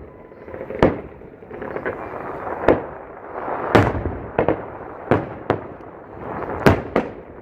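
Aerial fireworks bursting overhead: a string of sharp bangs at uneven spacing, roughly one or two a second, with a rumbling wash of sound between them.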